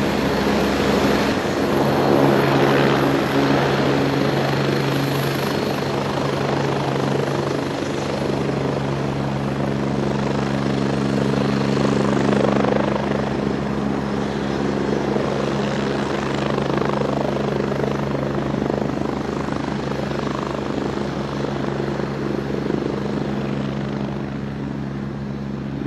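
Agusta A109E twin-engine helicopter running, its rotor and turbines making a steady, loud noise with a low hum throughout. The level eases slightly toward the end.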